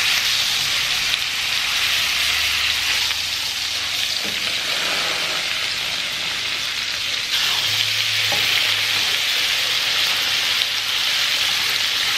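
Steaks sizzling steadily in hot butter in a stainless steel skillet as they are turned over with a spatula.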